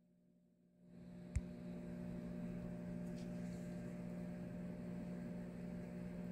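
A steady low hum fading in within the first second and holding, with one sharp click about a second and a half in.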